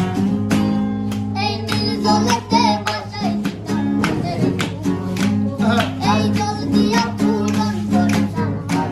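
Background song: strummed acoustic guitar with a singing voice coming in about a second and a half in.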